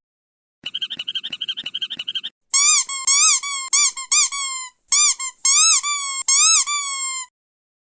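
Squeaky rubber dog toys. First comes a fast run of short squeaks for about a second and a half, then a long string of loud squeals, each rising and falling in pitch, like a squeezed rubber chicken.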